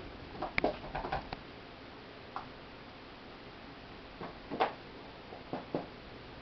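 Light, scattered taps and clicks of a kitten playing with a toy mouse. A quick flurry comes in the first second and a half, then a lone tap, then a few more taps in the second half.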